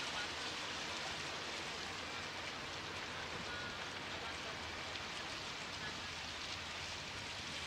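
Kvaerner Fjellstrand FlyingCat 40 catamaran ferry pulling away, its engines and waterjets churning the water at the stern into a steady rushing hiss.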